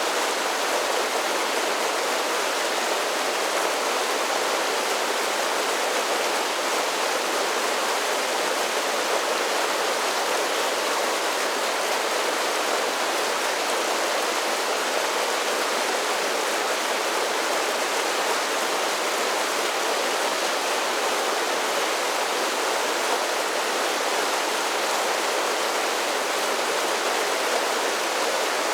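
Mountain creek water tumbling over a series of small falls, a steady rushing splash with no breaks or changes.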